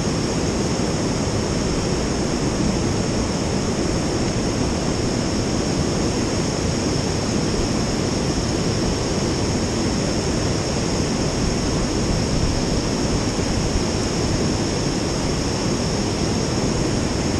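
Fast stream water rushing over rocks and rapids, a steady, unbroken rush.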